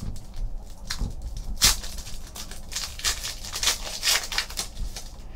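Foil trading card pack being torn open and crinkled by hand, in several irregular crackling bursts, the sharpest about one and a half seconds in.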